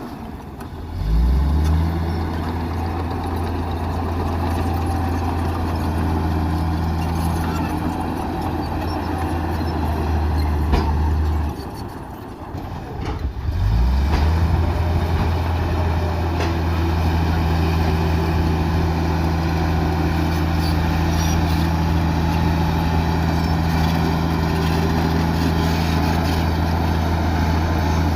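Heavy diesel engine of a bulldozer working under load, a steady low drone that drops off twice, once right at the start and again around the middle, then revs quickly back up each time.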